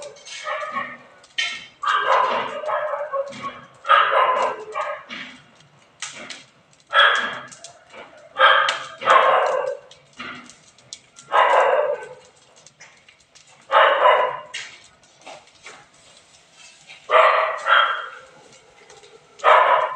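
A dog barking repeatedly, a bark or two every couple of seconds, over the crackling of a burning straw pile.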